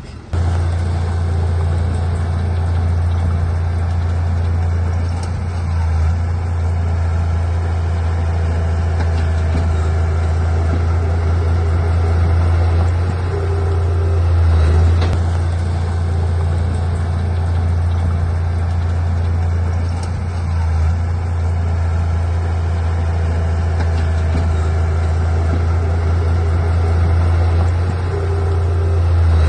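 Heavy diesel engine of earthmoving machinery running steadily with a deep, constant hum, swelling slightly twice.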